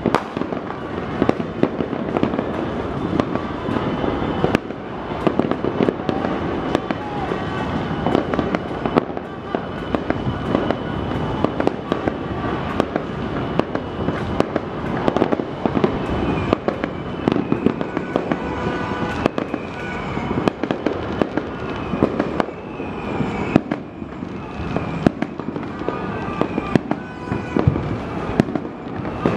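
Many fireworks going off at once: a dense, unbroken stream of overlapping bangs and crackling with no let-up.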